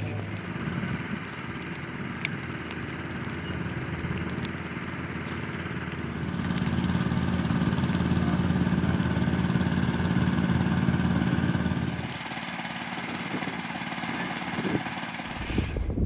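A motor running steadily, getting louder for several seconds in the middle and then dropping back, over a hiss with a few sharp crackles from burning brush.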